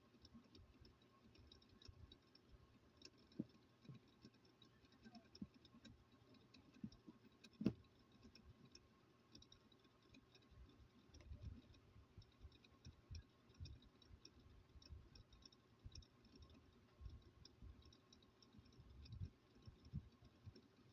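Faint, scattered clicks and light knocks of a plastic phone charger and small tools being handled during disassembly, with one sharper click about eight seconds in.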